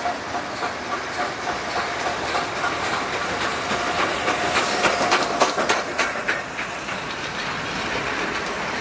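British-built 4-6-0 steam locomotive working a passenger train past at close range. Regular exhaust beats come first, then a burst of sharp wheel clicks over the rail joints, loudest about halfway through as the engine and tender go by. The carriages roll past more steadily near the end.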